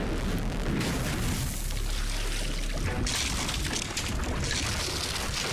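Cartoon action sound effects: a loud, continuous rushing noise over low rumbling booms, with the hiss growing brighter about three seconds in.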